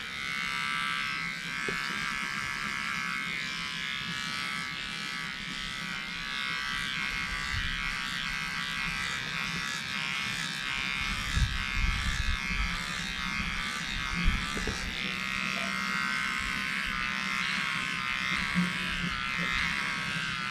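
Cheap cordless dog hair trimmer running with a steady electric buzz as it is worked over chest hair, with a few brief soft bumps about halfway through.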